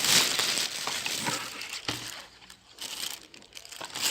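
Crinkling, rustling handling noise with scattered light clicks and knocks, loudest in a hissy burst at the start.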